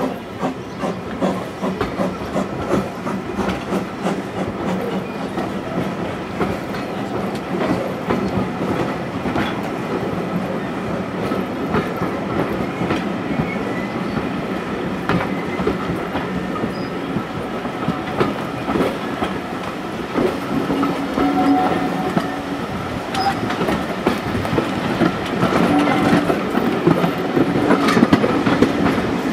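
Heritage steam train running, heard from a carriage window: the steady clatter of the carriages' wheels with a quick run of clicks over the rail joints, growing louder near the end as the train gathers speed.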